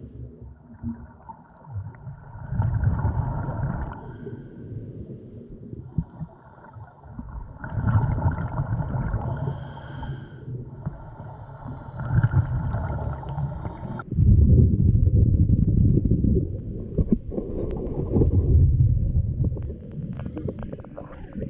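Muffled underwater noise picked up by a submerged camera, a low rumble that swells and fades every few seconds as the camera moves through the water.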